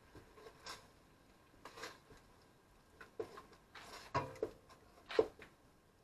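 Spoon stirring curry paste into coconut milk in a pot, with irregular scrapes and knocks against the pot about once a second.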